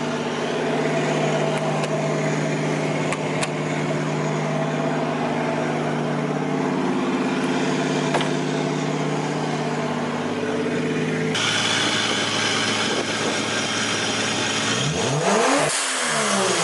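Turbocharged Toyota JZ straight-six engine, swapped into a Nissan, idling steadily, the sound changing abruptly about two-thirds of the way through; near the end a single quick throttle blip that rises in pitch and falls back.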